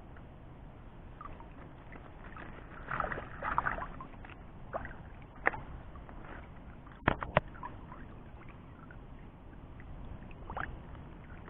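Water sloshing and splashing around a person wading in shallow water, with a few sharp clicks or knocks, two of them close together about seven seconds in.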